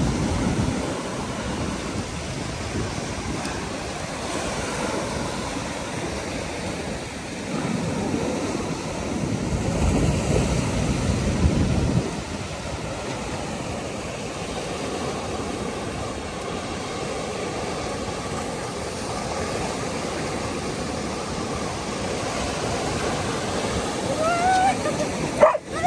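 Sea waves surging and washing over a concrete slipway, a steady rush of surf with wind buffeting the microphone. The surf swells louder for a few seconds, then drops off suddenly about twelve seconds in.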